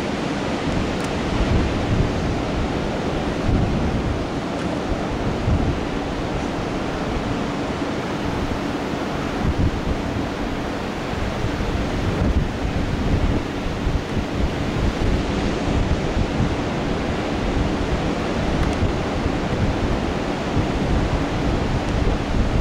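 Ocean surf breaking on the beach: a steady, even rush of wave noise, with wind buffeting the microphone in low gusts. A faint steady hum runs underneath.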